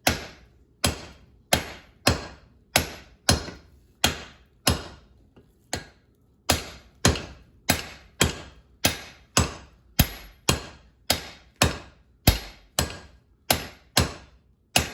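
Hand hammer blows on hot steel over an anvil, forging a hammer eye drift. The blows come steadily at about two a second, each ringing briefly, with a short pause about five seconds in.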